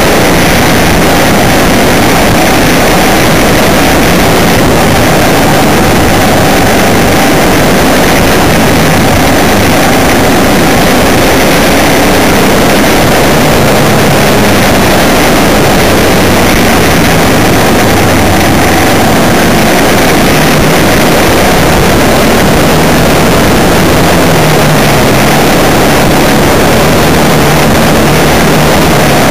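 A vehicle engine running steadily under way, mixed with dense road noise, loud and close as heard from a camera carried on the vehicle.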